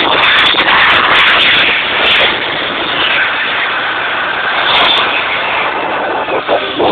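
Loud nightclub din of dance music and crowd noise, heard as a dense, unbroken roar that drops a little about two seconds in.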